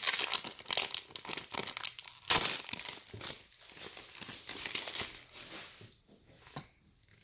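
Foil booster-pack wrapper being torn open and crinkled in the hands, with the loudest crackle about two seconds in; the crinkling dies away after about six seconds.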